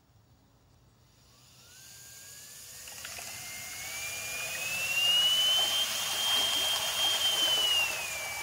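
Home-built trolling motor (a Portaband bandsaw motor with gear reduction turning a 3D-printed prop through a 90-degree drill adapter, run at 24 volts) spinning up in a tub of water. Its whine rises in pitch over about four seconds and holds high, with the prop churning and splashing the water, then starts to drop near the end. At full load it draws under 5 amps.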